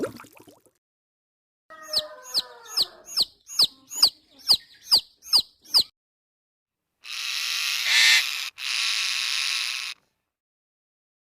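A bird calling in a quick, even series of about ten short, high chirps that fall in pitch. After a pause comes about three seconds of hissing, broken once in the middle.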